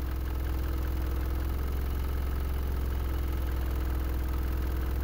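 JBL Sub1500 subwoofer, fitted with a freshly replaced spider, playing a steady low sine tone from a sweep generator with a stack of overtones above it. The tone is being slowly moved near the cabinet's tuning frequency, roughly 25 Hz, where the driver's current draw is lowest.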